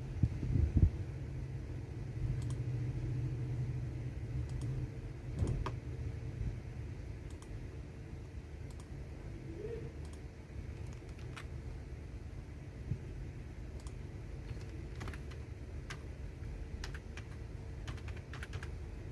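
Typing on a computer keyboard: keys clicking at an irregular, unhurried pace, with a few heavier key strikes near the start. A steady low hum runs underneath.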